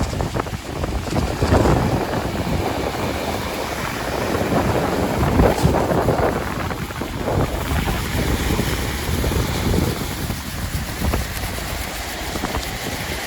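Strong wind buffeting the microphone in gusts, over the steady wash of surf breaking on the shore.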